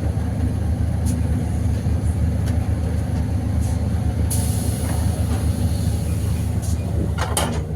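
City bus engine running steadily, heard from inside the passenger cabin as a low drone, with a hiss starting about four seconds in.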